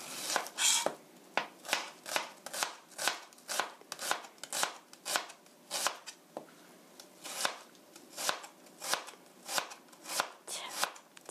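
Kitchen knife mincing onion on a plastic cutting board: a steady run of sharp knocks of the blade on the board, about two to three a second.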